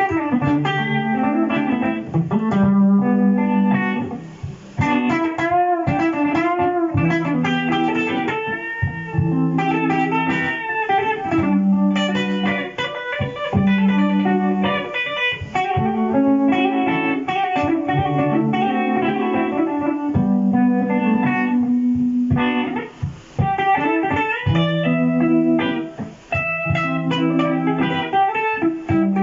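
Electric guitar played through a Boss GT-100 multi-effects unit: a looped, repeating low-note pattern with an improvised jazzy melody over it, some notes bent and held with vibrato.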